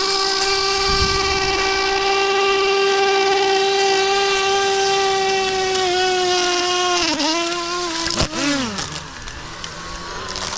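Crashed quadcopter drone's motors still spinning with some propellers broken off: a loud, steady whine that wavers and drops in pitch about seven seconds in as the drone is grabbed, with a sharp knock about eight seconds in.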